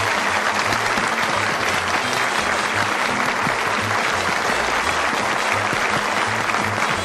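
Studio audience applauding steadily as the host comes on, with faint low music notes underneath.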